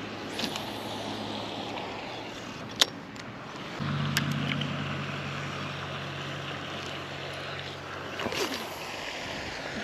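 Wind buffeting the microphone, with a steady low hum from about four to eight seconds in and a few sharp clicks, the loudest about three seconds in.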